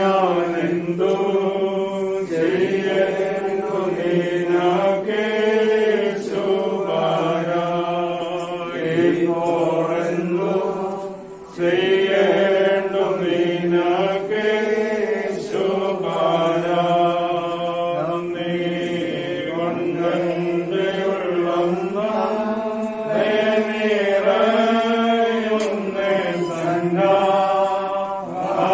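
Slow Malayalam Christian hymn sung in long, held phrases, with a brief break in the singing about eleven seconds in.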